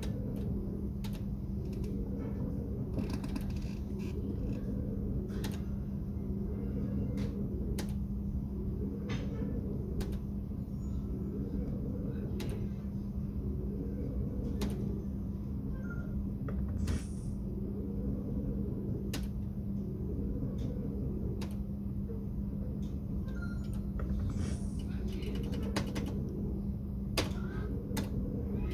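Merkur Tizona video slot machine spinning its reels over and over, a repeating electronic spin sound about every two seconds with sharp clicks as the reels stop, over a steady low hum.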